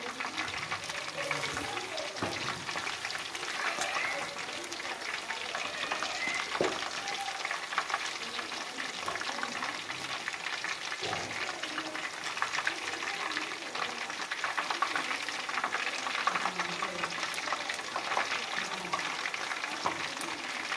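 Spice-coated chicken pieces deep-frying in hot oil: a steady crackling sizzle, with now and then a clink or scrape of a metal slotted spoon turning the pieces over.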